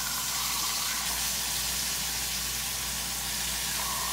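Ribeye steaks sizzling steadily in bacon grease in a hot skillet, frying on their second side.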